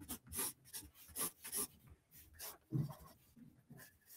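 Graphite pencil sketching on paper: a quick run of short, irregular scratchy strokes.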